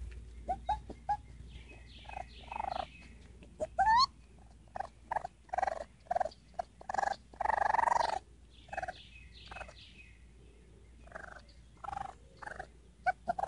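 Baby raccoon giving a string of short, repeated pitched calls, a few a second, while being petted. There is a quick rising squeal about four seconds in and a longer, louder call a little past the middle.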